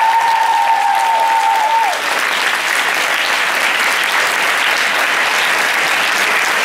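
Large audience applauding steadily. One long, high call from the crowd is held over it and drops off about two seconds in.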